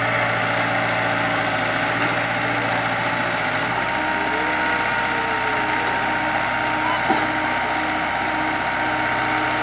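Kobelco SK03 crawler excavator's diesel engine running steadily while the machine tracks down off a truck's loading ramps; the engine note shifts a little about four seconds in, and there is one short knock a few seconds later.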